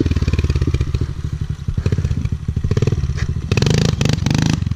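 Kawasaki KLX110 pit bike's small single-cylinder four-stroke engine running at low revs, then given several quick throttle blips, each rising in pitch, about three and a half seconds in.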